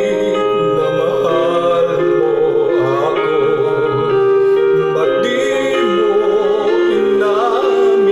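A man singing long, wavering held notes into a handheld karaoke microphone over a backing track.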